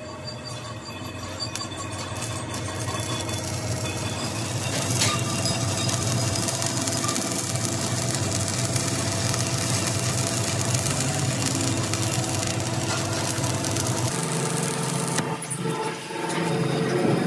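Stick arc welding: the electrode's arc crackling steadily as it runs a weld along the joint of a rolled steel wheel-rim band, over a steady low hum. The arc stops near the end.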